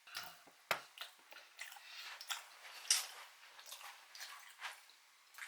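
Mouth noises of someone biting into and chewing a ham, lettuce and duck pate wrap: a sharp bite less than a second in, then irregular crisp chewing of the lettuce.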